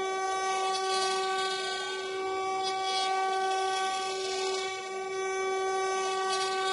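The twin 800 W spindle motors of a mini CNC router running at a steady high-pitched whine while the bit mills a 3D relief into a wooden board, with a hiss of cutting over it.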